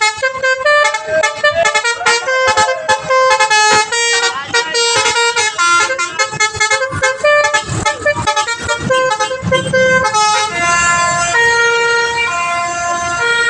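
Telolet bus horn playing a melody. A rapid run of short stepped notes is followed, from about ten seconds in, by longer held notes.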